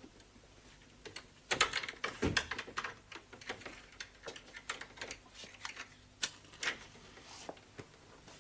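Irregular light knocks and clicks: a busy cluster about one and a half seconds in, then scattered single ones until near the end.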